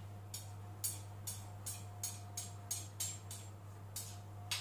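A metal spatula scraping Nutella off a spoon: a run of short, sharp scrapes, two or three a second at uneven spacing.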